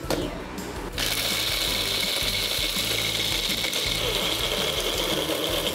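Wonderchef bullet-style personal blender running, grinding roasted dates, almonds and cashews into a sticky dough. It starts about a second in and runs steadily with a high whine.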